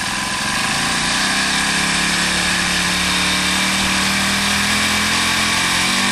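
Single-cylinder four-stroke overhead-cam Honda engine of a motorized bicycle running steadily, nice and quiet through its muffler, which has been freshly repacked with fiberglass.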